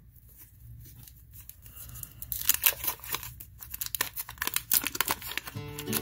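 A paper wrapper on a trading-card pack being torn open by hand, with crackly tearing and crinkling starting about two seconds in.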